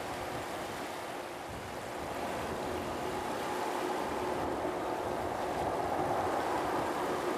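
Distant jet airliner engines: a steady rumble with a faint hum in it, gradually growing louder over the last few seconds.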